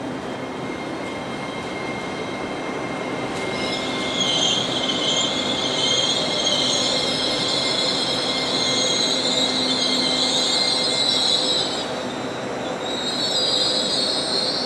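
LNER Azuma train running past along the platform, with a steady rumble and a thin high whine. From about four seconds in, its wheels squeal shrilly on the rails. The squeal breaks off briefly near the end, then starts again.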